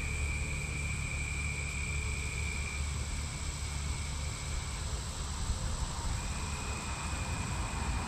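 Outdoor ambience: a steady low rumble under two continuous high, thin tones. The lower of the two tones stops about five seconds in and comes back a little over a second later.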